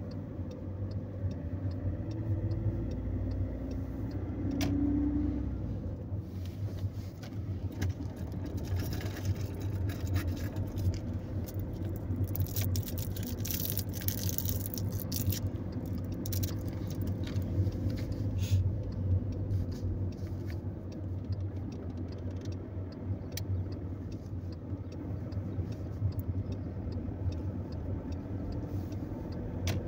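Car interior noise while driving: a steady engine and tyre hum, with a louder hiss for several seconds about halfway through.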